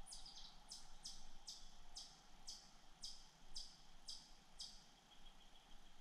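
A bird calling faintly: a series of about ten high, quick downward-slurred notes, roughly two a second, that stop shortly before the end.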